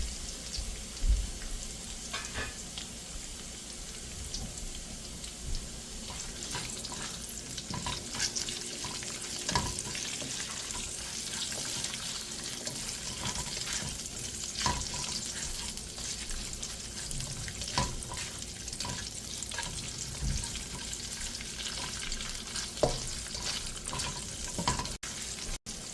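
Chopped garlic and ginger sizzling steadily in hot oil, stirred with a utensil that knocks against the pan now and then.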